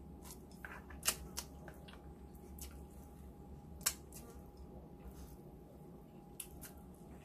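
Close-up eating sounds: slurping and chewing sotanghon glass noodles, with a string of sharp wet mouth smacks and clicks, the loudest about a second in and just before four seconds.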